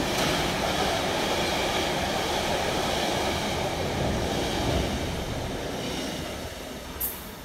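A train passing on the line: a steady rushing rumble of wheels on rail that fades away over the last two seconds, with a brief sharp high click near the end.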